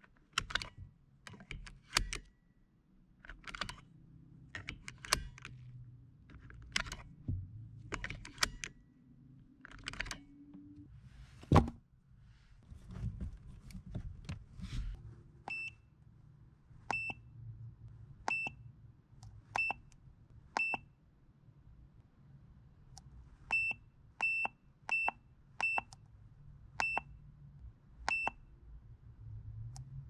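A 2004 Honda Civic driver's seat belt latch plate clicks in and out of its buckle several times, with one sharp knock about halfway through. Then an Autel AutoLink AL619 scan tool gives about eleven short high beeps, one with each button press.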